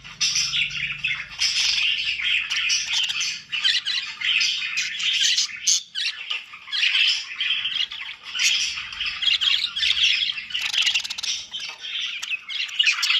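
Budgerigars chattering and warbling non-stop, with quick chirps and harsh squawks running together.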